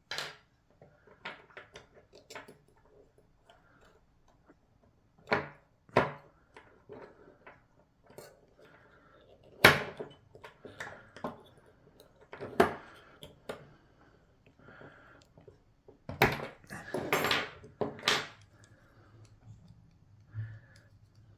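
Small metal parts of a lock cylinder clicking and clinking as they are handled and set down during disassembly: scattered sharp clicks with short pauses, and a busier clatter about three-quarters through.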